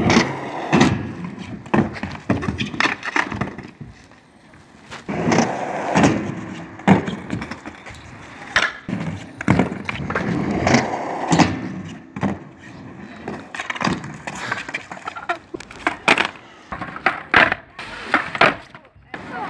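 Skateboard wheels rolling on concrete, broken by repeated sharp wooden clacks of the board's tail popping and the board landing.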